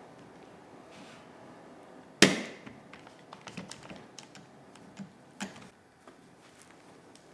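Hand work on a bark canoe stem: a spruce-root lashing being pulled through and a bar clamp handled. One sharp knock comes about two seconds in, followed by a run of light clicks and taps.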